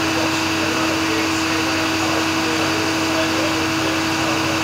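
Steady whirring drone of a running machine, with a constant hum tone and an even hiss that neither rise nor fall.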